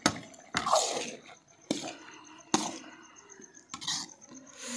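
A long metal spatula stirring cooking carrot halwa in a large karahi: wet squelching of the mixture, with about six sharp scrapes and knocks against the pan at irregular intervals.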